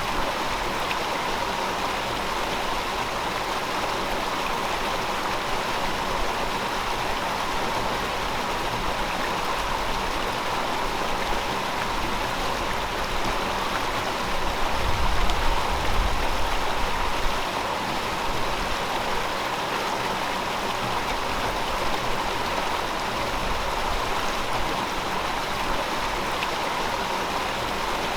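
River water flowing and rushing steadily, with a brief low rumble swelling up about halfway through.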